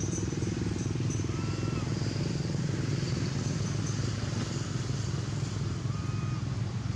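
A steady low motor-vehicle engine drone running without change, with two short faint high chirps, one about a second in and one near the end.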